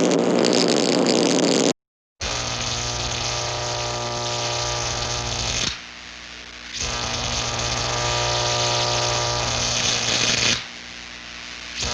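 Old-school cartoon electricity sound effects: a harsh, noisy electric effect that cuts off suddenly a little under two seconds in, then after a brief silence a steady electric buzz with a strong hum, which drops lower twice for about a second and comes back.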